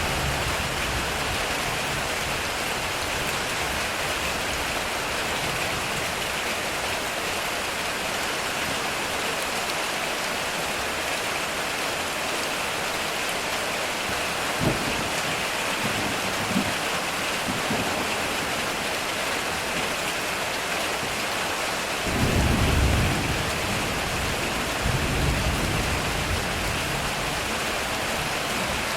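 Heavy rain falling steadily on a metal roof, with thunder: a sharp crack about halfway through, then low rumbles, the loudest a few seconds later and another near the end.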